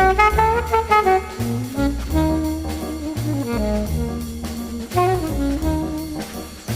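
Background jazz music: horn melody over walking bass and drums.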